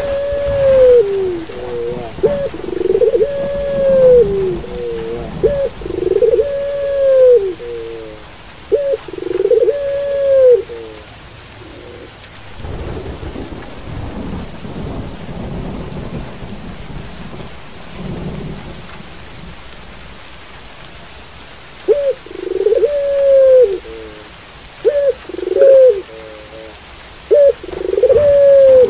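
Ringneck dove (puter) cooing in repeated arched phrases, each rising and falling, over steady rain. The cooing stops for about ten seconds midway, leaving only the rain, and starts again near the end.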